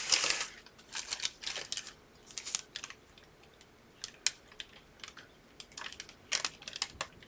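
Plastic piping bag crinkling and rustling in short, irregular bursts with small clicks as frosting stars are squeezed out.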